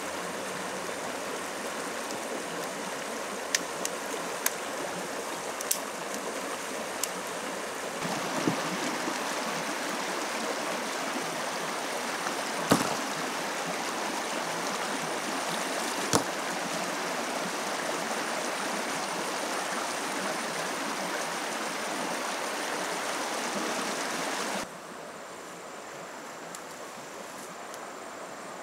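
Shallow rocky stream rushing steadily over stones, with a few sharp knocks scattered through the first half. About 25 s in, the water sound cuts off and a quieter steady high insect drone takes over.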